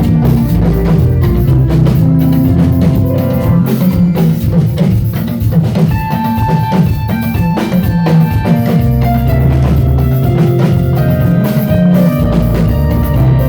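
Instrumental band music: a drum kit keeping a steady beat under a deep bass line and held melodic notes, with no singing.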